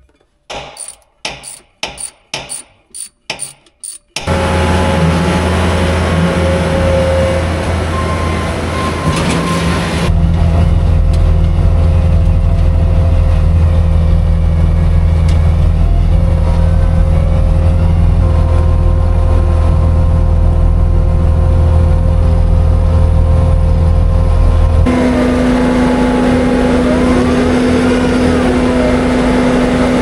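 A quick run of about eight sharp clacks, then a Bobcat S650 skid steer's engine running steadily as it drives a Kubota snowblower attachment throwing snow. The drone is heard first from inside the cab, and from outside near the end.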